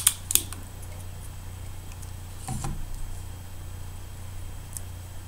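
Small sharp clicks and taps of a pick tool against a plastic roll of glue dots, a few in the first half second, then a softer handling sound about halfway through. A steady low hum runs underneath.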